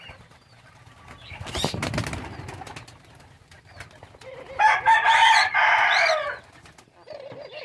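Doves in an aviary: a dove's wings flap as it takes off, and a loud, harsh bird call lasts about two seconds in the second half.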